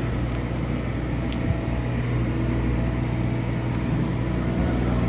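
Steady low machine hum with a faint tick or two.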